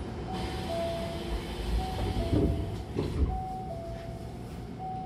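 Commuter train's double sliding doors closing: a two-note falling door chime repeats about every one and a half seconds while the door leaves slide shut and meet with two knocks about two and a half and three seconds in, over the low rumble of the stopped train.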